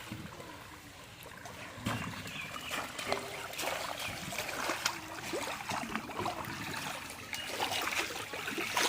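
Water splashing and trickling in irregular bursts, growing busier and louder from about two seconds in.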